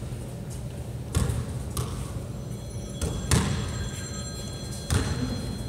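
A basketball and players' feet striking a hardwood gym floor: about five irregular thuds that echo in the large hall.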